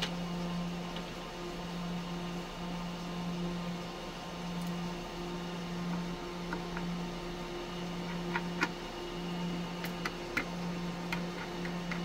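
Small metallic clicks and ticks of a screwdriver working the screws on an NVMe PCIe adapter card, scattered mostly through the second half. Under them runs a steady low hum that wavers about once a second.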